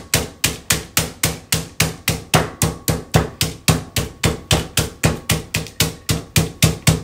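Meat mallet pounding a chicken breast under wax paper, a steady run of sharp blows at about four a second, flattening the breast to about a quarter inch thick.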